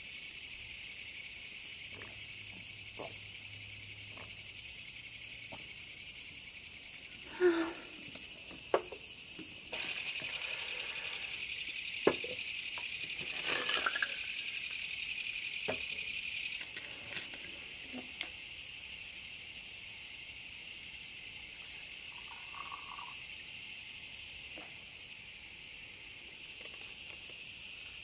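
A steady chorus of night insects, a high trill that runs on. In the first half come a few sharp knocks and clinks of glass and bottles being handled on the table.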